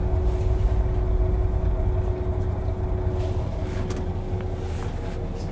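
KiHa 40 diesel railcar idling while stopped, a steady low rumble with a steady hum above it, easing slightly in level over the last couple of seconds.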